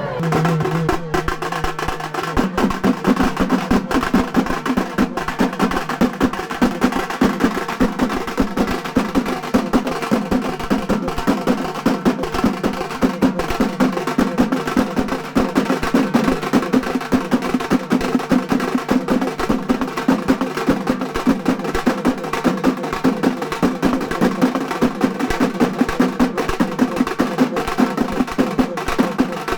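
Fast, continuous drumming: rapid strokes at an even, driving pace.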